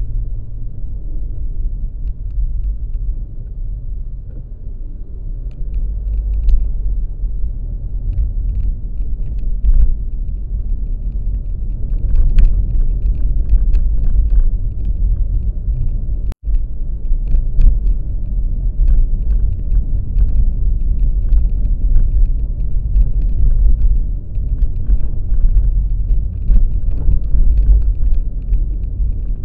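Steady low rumble of a moving road vehicle, with faint scattered ticks and clatter over it. The sound cuts out for an instant about sixteen seconds in, then resumes.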